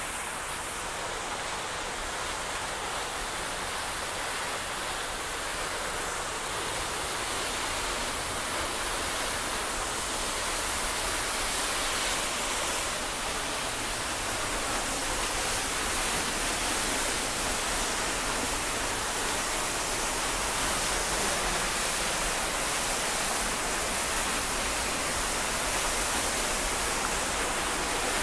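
Tunnel Falls, a tall waterfall, pouring into its pool: a steady rush of falling water that grows slowly louder.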